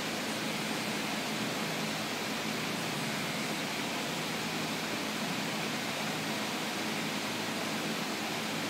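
Detroit Diesel 8V-53 two-stroke V8 diesel running steadily, heard as an even rushing noise with a faint low hum underneath. Air is hissing from the exhaust, which the owner puts down to compression escaping past a broken valve.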